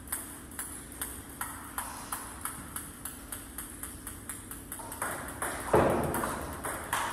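Table tennis ball clicking off bats and table in a rally, a steady run of sharp clicks about three a second. A louder, noisier burst comes a little under six seconds in.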